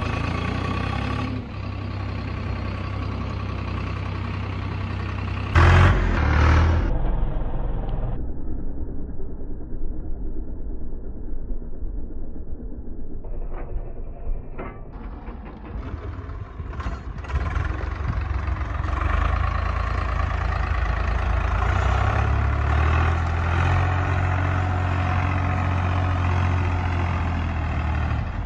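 Swaraj tractor's diesel engine running hard as the tractor drives through soft desert sand, its pitch and load shifting, with a brief loud rush about six seconds in.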